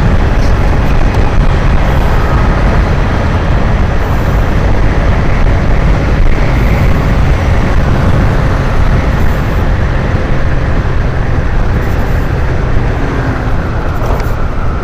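Motorcycle riding at speed on the road: loud, steady wind noise on the microphone with the engine running underneath.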